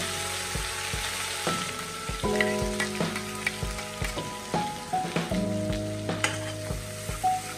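Hot oil sizzling in a stainless-steel kadai as a thick paste is poured and scraped into it, with a few light clinks of a steel spoon. Soft background music plays over it.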